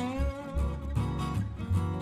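Background music led by acoustic guitar, with plucked and strummed notes over a steady bass line.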